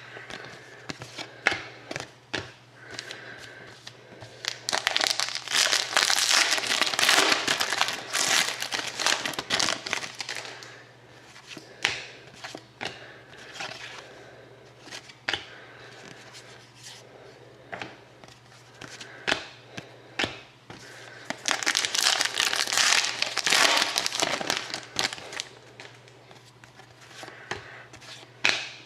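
Trading-card pack wrappers being torn open and crinkled, in two long stretches, with many light clicks and flicks of cards being handled in between.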